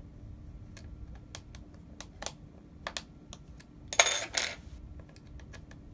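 Light clicks and taps of small plastic and metal laptop parts being handled while an opened Chromebook's battery is worked out, with one brief louder clatter about four seconds in.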